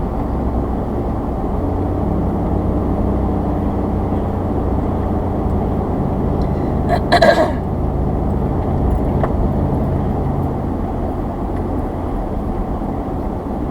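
Steady engine and road noise inside a pickup truck's cab on the highway, with a steady engine drone through the middle and one brief sharp sound about seven seconds in.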